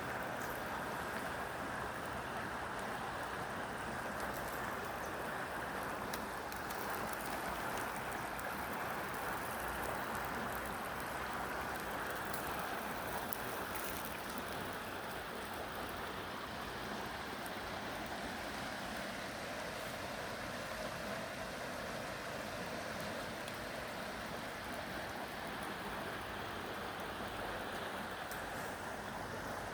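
River water rushing steadily, an even, unbroken noise of flowing current.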